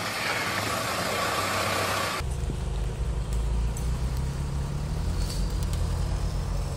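Off-road 4x4 engine running, with a broad hiss over it. About two seconds in, the sound cuts to a deeper, pulsing engine rumble.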